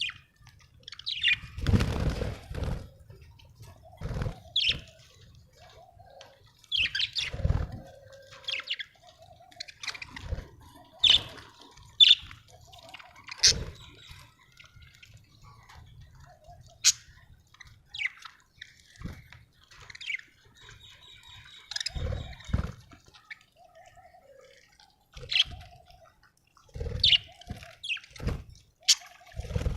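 Budgerigars chirping in short, scattered calls, with occasional sudden knocks and rustles mixed in.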